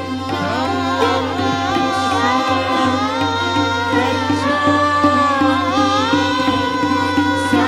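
Indian classical music: a voice singing long melodic lines that slide and bend between notes, over a steady held drone.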